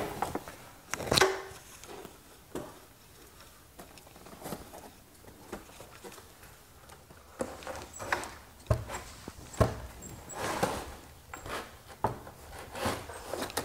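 Knocks, clicks and rubbing of plastic and sheet metal as a mini-split's indoor head unit is handled and hung on its metal wall mounting plate. The knocks come singly, one about a second in, then more often through the second half.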